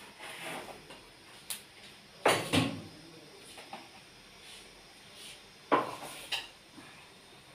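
Kitchen utensils and dishes being handled on a countertop: a few separate sharp knocks and clinks, the loudest a pair close together about two and a half seconds in and another about six seconds in.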